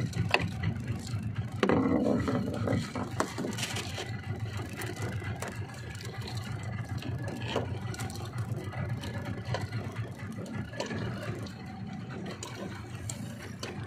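Outboard motor running steadily, a low hum, with scattered small clicks and knocks from handling fishing tackle and a short louder burst about two seconds in.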